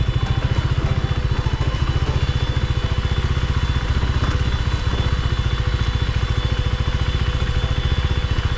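KTM 390 Duke's single-cylinder engine running steadily, its exhaust note pulsing with an even rapid beat.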